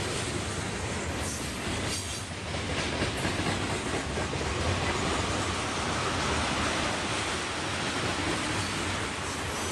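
Freight train cars (tank cars and covered hoppers) rolling past: a steady rumble and clatter of steel wheels on the rails.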